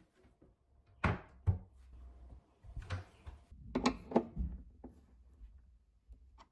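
Scattered light knocks and clicks from a screwdriver turning the adjusting screw of a concealed Blum cabinet hinge while the cabinet door is handled. They start about a second in, after a short hush.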